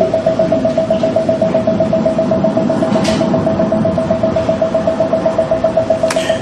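Sound-and-light relaxation device (Mind Navigator) playing a steady tone that pulses in quick, even beats, a 'pon-pon-pon' sound meant to steer the listener's brainwaves toward a relaxed, sleep-ready state. A short click about three seconds in.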